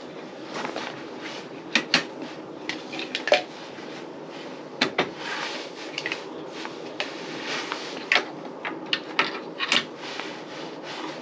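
Camp mugs, lids and small containers being picked up and set down on a folding camp table: a string of sharp clacks and knocks at irregular intervals, with rustling in between.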